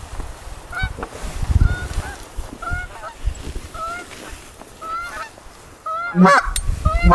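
Canada geese honking: a run of short, evenly repeated honks, with two much louder honks near the end.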